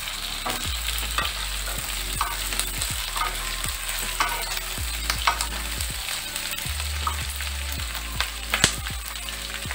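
Cubed onion and capsicum sizzling in hot oil in a non-stick wok on high flame, stirred with a wooden spatula that scrapes and knocks against the pan in frequent short clicks.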